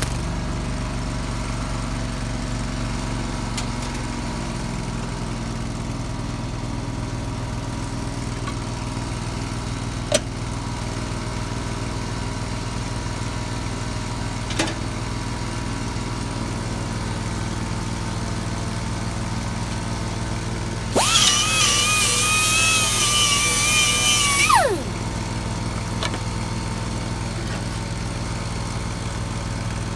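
Steady drone of a Miller Trailblazer engine-driven welder-generator running. About 21 seconds in, an angle grinder spins up with a loud high whine, runs for nearly four seconds and winds down with a falling pitch.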